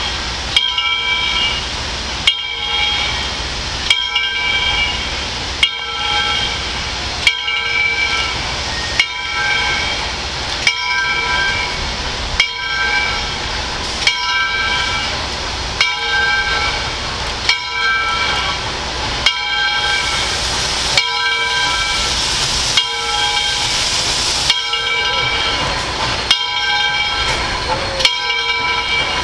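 Steam locomotive's bell ringing at a steady pace, about one stroke every second and a half to two seconds, each ringing on briefly. Under it is the steam hiss and running noise of the approaching locomotive, which grows louder about two-thirds of the way through.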